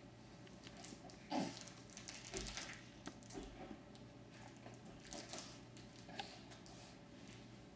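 A baby crawling on a rug: faint scuffing and rustling from hands and knees, with a few soft knocks, the loudest about a second and a half in, over a low steady hum.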